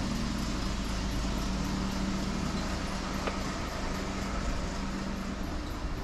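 Street ambience with a motor vehicle's engine running steadily, a low even hum, and one short click about three seconds in.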